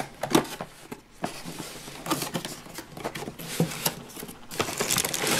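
Cardboard toy box being opened by hand: irregular scrapes and taps as the flaps are pulled open, then rummaging inside the box, with a denser rustle near the end.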